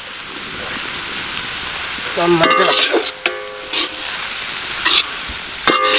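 Sliced tomatoes sizzling as they drop into hot oil with shallots in an iron kadai. From about two and a half seconds in, a steel ladle stirs the mix, scraping and knocking against the iron pan with short metallic rings.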